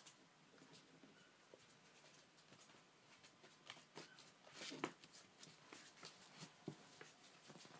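Near silence with faint scattered clicks and rustles from a puppy moving about on a wooden floor and nosing an electrical cable. A brief, louder rustle comes about four and a half seconds in.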